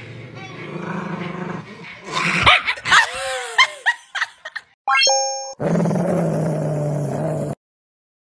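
A dog growling steadily, then a burst of loud, wavering barks. About five seconds in a short chime sounds, and then a second dog growls steadily for about two seconds.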